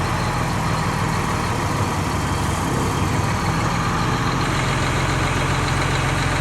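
Large diesel engine of a tub grinder running steadily at an even, unchanging speed.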